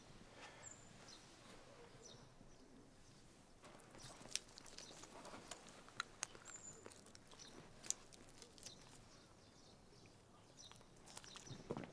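Faint outdoor ambience with a few scattered sharp clicks.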